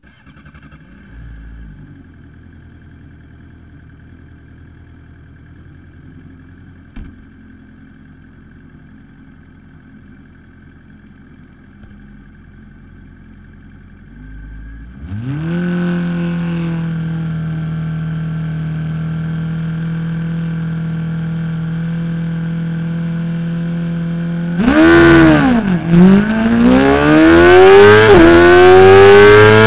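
600cc supersport race motorcycle engine idling on the start grid, then revved up about halfway through and held at a steady high pitch. Near the end it launches from the grid: the revs dip as the clutch bites, then climb hard, with an upshift about a second later.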